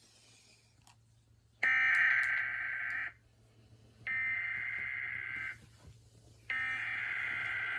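Emergency Alert System SAME header: three buzzing bursts of digital data tones, each about a second and a half long with about a second between them, sent to open an emergency alert broadcast.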